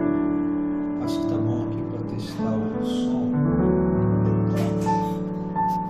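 Slow piano chords from a VST software instrument played on a MIDI keyboard controller, each chord held and changing every second or so.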